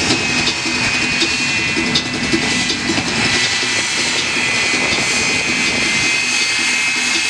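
Twin Rolls-Royce jet engines of a 1940s Ford fire truck running on afterburner: a loud, steady jet roar with a high whine over it. Several sharp bangs in the first couple of seconds as the afterburners are lit and fireballs burst from the rear.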